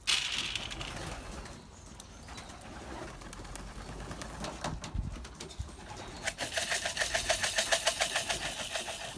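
Pigeon feed grains rattling in a container, a fast, even rattle for the last three seconds after a few scattered clicks: the feeding sound used to call racing pigeons back into the loft.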